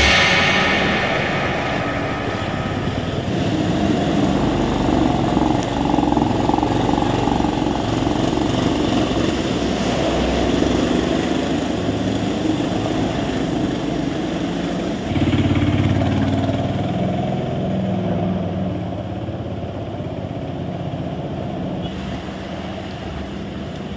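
Street traffic driving through floodwater: engines of cars, motorcycles and auto-rickshaws running under a steady wash of noise. About fifteen seconds in, a deeper rumble comes in, as of a heavier vehicle close by, then eases off.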